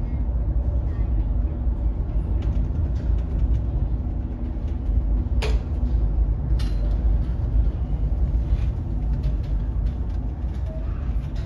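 Steady low rumble inside the ferry Kaitaki as it works through a heavy swell, with a sharp knock about five seconds in and a fainter one a second later.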